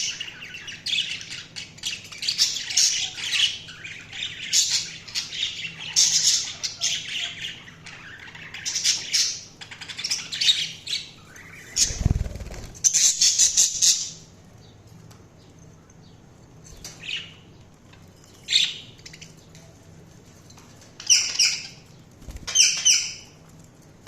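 Budgerigars chirping and squawking, a busy run of overlapping calls for the first half that thins out to scattered single chirps. A low thump about twelve seconds in.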